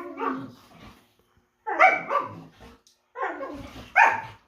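Dogs play-fighting, barking and yipping in three short bursts.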